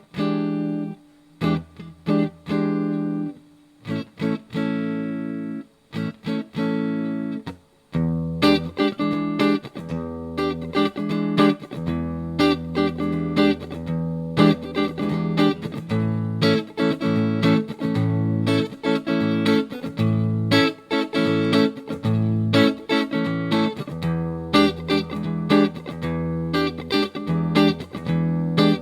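Electric guitar played through a budget practice amp's clean channel: a few ringing chords with short pauses between them, then from about eight seconds in a steady, rhythmic strummed chord pattern.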